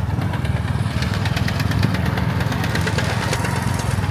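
A vehicle engine running close by with a fast, steady throb, and a crackling rattle over it from about a second in.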